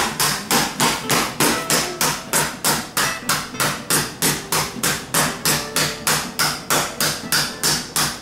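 A round-headed mallet repeatedly pounding Oreo cookies in a plastic zip bag on a granite countertop, crushing them into crumbs. Even strikes come about four a second.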